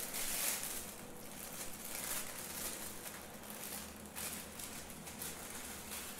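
Thin clear plastic bags on a roll rustling and crinkling as they are handled and pulled apart, with sharper crackles now and then, strongest at the start and about four seconds in.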